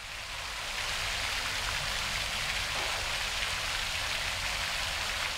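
Water from a large fountain's many jets splashing into its basin, a steady rushing hiss that fades in over the first second.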